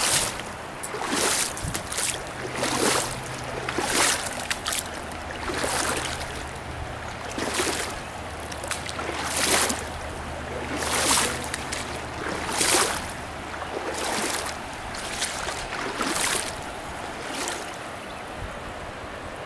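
Paddle strokes swishing through river water, one about every second, with the river's rushing steady underneath.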